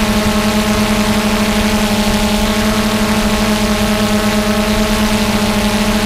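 DJI Phantom 2 quadcopter's electric motors and propellers buzzing at a steady pitch while it hovers, heard loud and close through the GoPro it carries.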